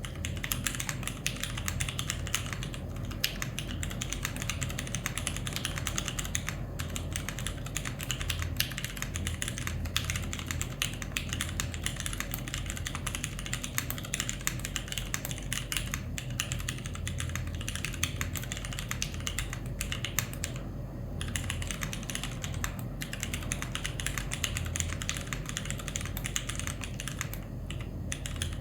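Continuous fast typing on a mechanical keyboard with vintage Cherry MX Clear tactile switches under GMK keycaps, in an aluminium-plate KMG B60 case, with brief pauses now and then.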